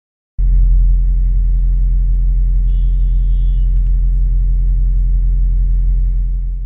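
Loud, steady low engine rumble, as of a motor vehicle running close by. It cuts in abruptly just after the start and cuts off suddenly at the end, with a faint high whine for about a second in the middle.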